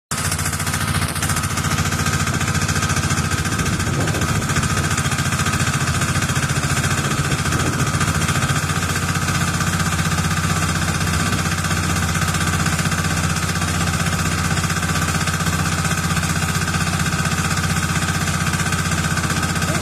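Diesel engine of a self-loading concrete mixer running steadily, with a rapid, even pulsing beat.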